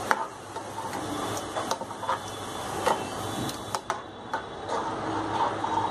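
Steel spoon stirring thin, watery curry gravy in a kadai, knocking and scraping against the pan in irregular light clicks over a faint steady hiss.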